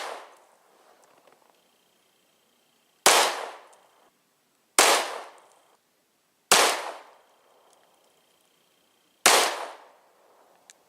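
Four single shots from a TP9 9 mm pistol, fired at an unhurried pace about two to three seconds apart. Each crack dies away in a short echo.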